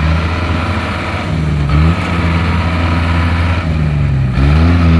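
Engine of a small tracked rice-hauling cart loaded with rice sacks, running hard as it is bogged down in mud, its pitch sagging and climbing back a couple of times.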